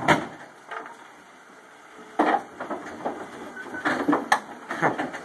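Irregular knocks, clunks and creaks of the Bronco's steel body shifting as it is winched up off the frame: one sharp knock right at the start, a quieter stretch, then a clatter of knocks and a short squeak from about two seconds in.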